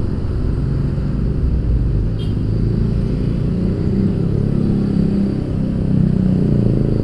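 Motorcycle engine running at low speed in slow-moving traffic, heard from the rider's seat as a steady low rumble with a faint wavering hum.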